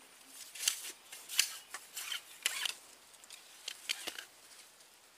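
Short crisp clicks and rustles at uneven intervals, about a dozen, as a freshly caught snakeskin gourami on a tegek pole line is swung in and handled.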